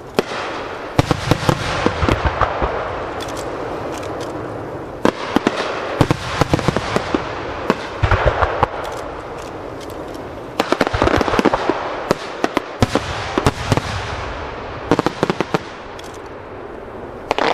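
Japanese starmine fireworks display: aerial shells launching and bursting in rapid volleys, clusters of sharp bangs a few seconds apart, with continuous crackling noise between the volleys.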